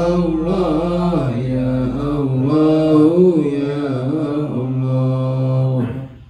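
Men's voices chanting Islamic dhikr together, in long drawn-out melodic phrases. The chant breaks off for a breath near the end.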